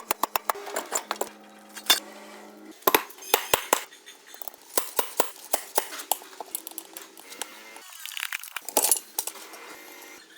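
Hand tools clinking and knocking on metal, many sharp strikes, some in quick runs, over a faint steady hum.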